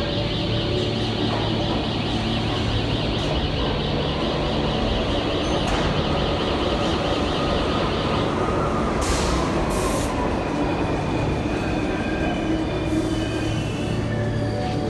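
New York City subway train pulling into an underground station, with a steady rumble of wheels on rail. A whine falls in pitch about eight to eleven seconds in as the train slows, and two short hisses come near the ten-second mark.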